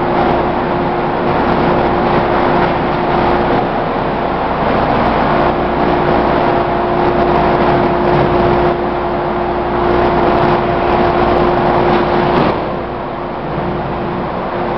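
Industrial plastic-crate washing machine running: a steady motor hum under a loud, even rushing noise. There is a short knock about twelve seconds in, after which the noise drops a little.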